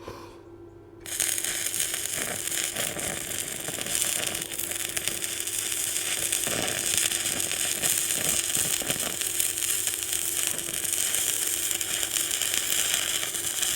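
Stick (MMA) arc welding at about 105 amps, done overhead: the arc strikes up about a second in and keeps up a steady, dense crackle and sizzle, with the welder's steady hum beneath.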